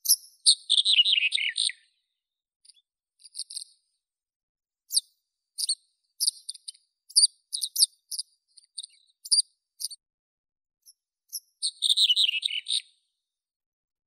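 Red-headed bunting singing: a quick phrase of notes falling in pitch at the start and another near the end, with short, high single notes scattered in between.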